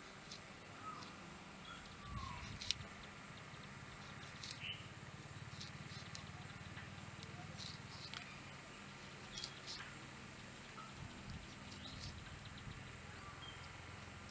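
Quiet outdoor ambience: scattered faint bird chirps over a steady high hiss, with a few sharp clicks, the loudest about three seconds in, as a machete blade cuts green plant stems by hand.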